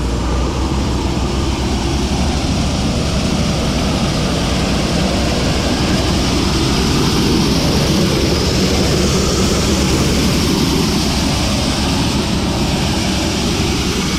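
Loud, steady machinery noise as a semi trailer of shelled corn is emptied into the grain pit hoppers, with the unloading equipment running.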